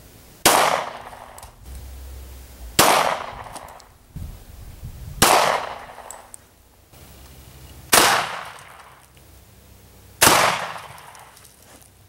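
Benelli Nova 12-gauge pump shotgun fired five times, about two and a half seconds apart, each shot ringing out briefly after the blast.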